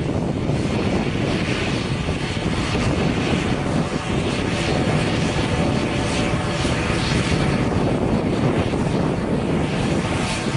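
Twin turboprop engines and propellers of an ATR 72 airliner running steadily at low power as it taxis on the runway.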